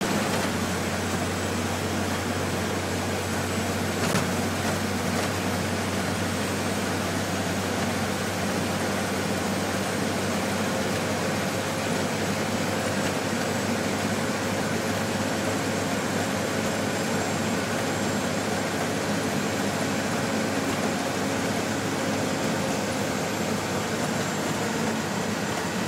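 Steady low engine drone mixed with road and wind noise inside the cab of a truck cruising at highway speed, with one brief click about four seconds in.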